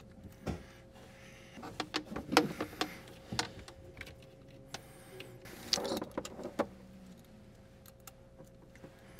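Handling noise of battery cables and their terminals being fitted onto battery posts: scattered clicks and light knocks, bunched about two seconds in and again around six seconds, over a faint steady hum.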